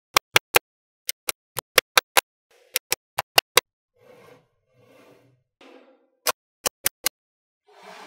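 Small magnetic balls clicking sharply as they snap together, a quick run of about twenty separate clicks in groups, with three softer, longer sounds of the balls being handled midway.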